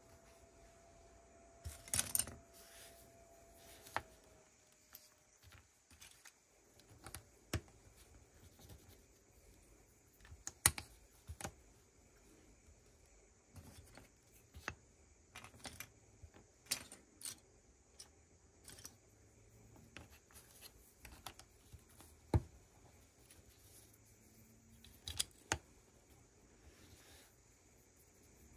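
Lego plastic pieces being handled and built: irregular sharp clicks and light rattling as bricks are picked up and pressed together, one every second or two, with a small cluster about two seconds in.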